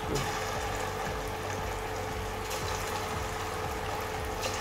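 Hot oil sizzling and bubbling in a wok as cornflour-coated chicken pieces are dropped in to deep-fry, with a sharper crackle as a piece goes in just after the start and again near the end.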